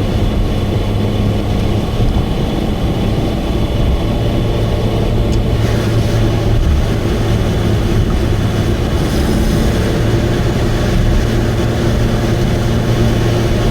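Subaru Vivio's four-cylinder engine running at steady highway cruising speed, with a loud, steady exhaust drone from a leaking exhaust.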